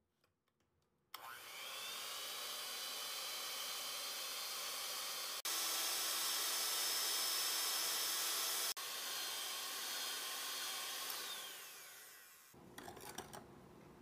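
Electric hand mixer with twin wire beaters whipping egg white and sugar into a stiff meringue in a glass bowl. The motor whines up to speed about a second in, runs steadily, and is louder for a few seconds in the middle. It winds down with a falling whine near the end.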